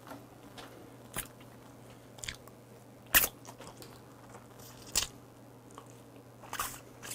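Close-up eating sounds of raw deep-sea shrimp taken by hand: scattered short mouth smacks and clicks of biting and chewing, a few seconds apart, the loudest about three seconds in.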